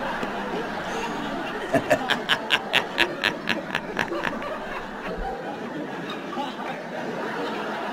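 A man's exaggerated villain's laugh, "muhehehehe": a quick run of about a dozen short "he" bursts at roughly five a second, starting about two seconds in and breaking off just after four seconds.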